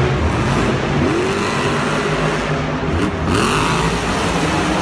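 Monster truck engines, supercharged V8s, revving hard, with the pitch swooping up about a second in and again around three seconds.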